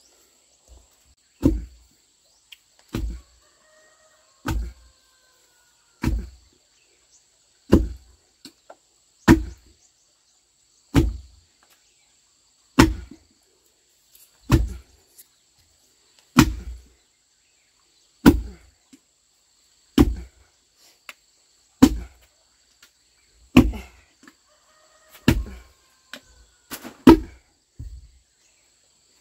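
A long wooden pestle pounds sticky white cake dough in a wooden mortar, landing in steady thuds about every second and a half to two seconds. A few smaller knocks come in between near the end.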